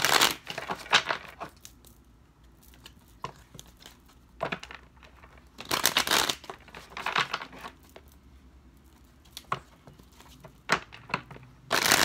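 Tarot cards handled while a reading is drawn: short bursts of shuffling and rustling, about a second long each, with single light taps and clicks between them as cards are pulled and laid down.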